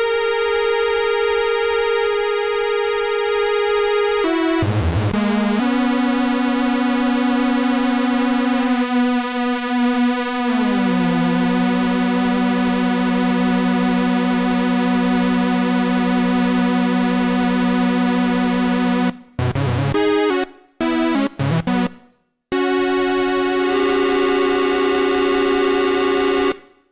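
Ad-vantage 03M DIY analogue synthesizer holding a note rich in overtones. There is a quick pitch swoop about five seconds in and a slow downward pitch glide around ten seconds. Near the end the sound cuts in and out in short choppy stretches before a higher held note returns.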